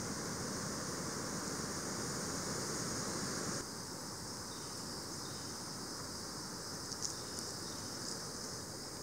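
Steady rainforest insect chorus, a high shrill hiss over a low background rumble. It drops in level a few seconds in, and there is a brief sharp tick about seven seconds in.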